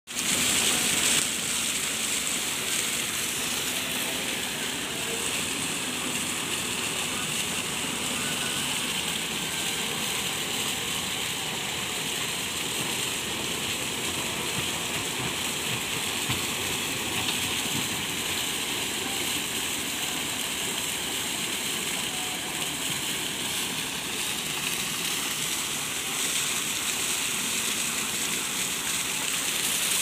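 Water gushing steadily from a pipe and splashing into a muddy pool and over a gravel screen, a continuous even rush.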